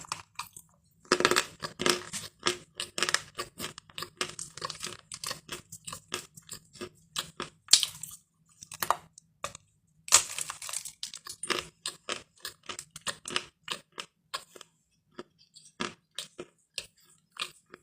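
Lumps of chalk bitten and chewed with loud crunching, close to the microphone. Two hard bites, about a second in and about ten seconds in, are each followed by a run of rhythmic crunchy chewing that thins out.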